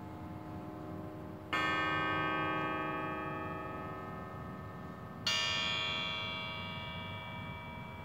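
Two struck bell-like metallic chimes, each ringing on with many overtones and fading slowly; the first comes about a second and a half in, the second about five seconds in. A steady low rumble lies under both.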